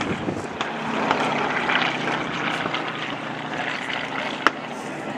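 Single-engine propeller plane flying a low pass, its engine drone swelling about a second in and then easing off. Scattered pops are heard, with one sharp crack about four and a half seconds in.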